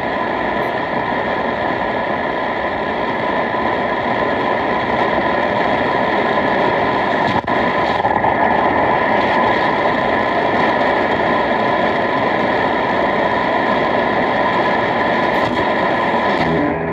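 Shortwave radio receiver hissing with loud, steady static and noise while tuned between clear signals around 5800 kHz. It cuts off abruptly near the end.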